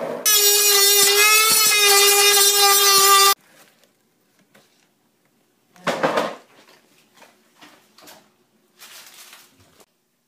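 Handheld rotary tool with a grinding stone, whining steadily at high speed as it grinds a metal edge, throwing sparks, for about three seconds before cutting off suddenly. After it come a few short, much quieter noises, the loudest a brief burst about six seconds in.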